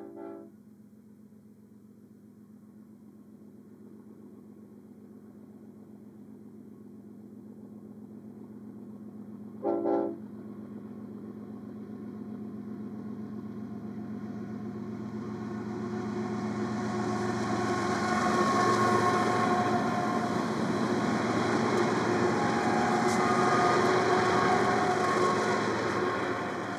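BNSF diesel freight locomotive's air horn gives two short blasts, a faint one at the start and a louder one about ten seconds in. Meanwhile the train's engines and wheels grow steadily louder as it approaches, loudest in the second half as it passes.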